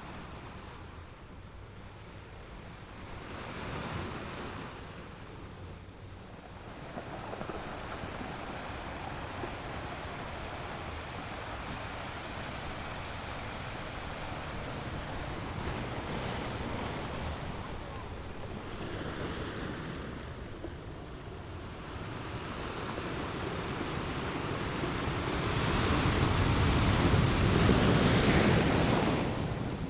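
Ocean waves breaking and washing on a shore, the surf swelling and ebbing, with a large wave building to its loudest near the end.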